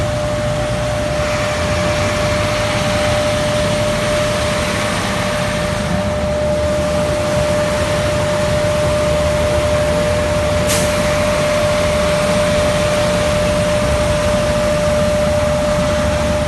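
SHACMAN snow-removal truck running steadily with its snow-clearing equipment working: a heavy engine drone with a steady whine over it and one brief click about ten seconds in.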